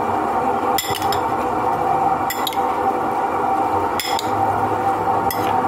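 A metal spoon mixing a wet salad in a ceramic bowl, clinking against the bowl four times about a second and a half apart, over a steady background hum.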